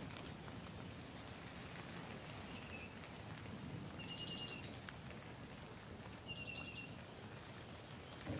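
Rain pattering softly on the tent fabric, heard from inside the tent, with a bird outside singing the same short phrase twice, about four seconds in and again about six seconds in. A short knock near the end.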